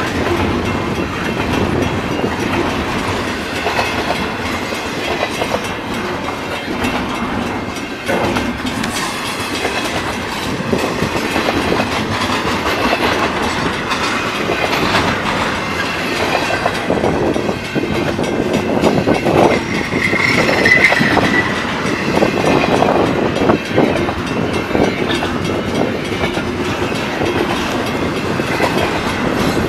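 Double-stack intermodal container freight train passing at close range: the steady running noise of its wheels and cars going by, with a brief high squeal about two-thirds of the way through.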